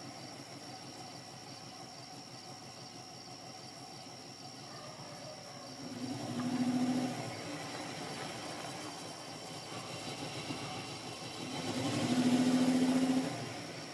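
Car engine running steadily, with two louder swells about six seconds apart, each lasting a second or two.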